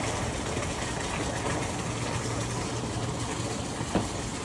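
A steady low mechanical hum under a rushing wash of noise, with one faint click near the end.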